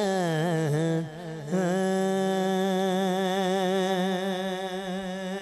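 A man's voice singing a Punjabi naat unaccompanied: a wavering, ornamented phrase, a brief break for breath, then one long held note from about a second and a half in.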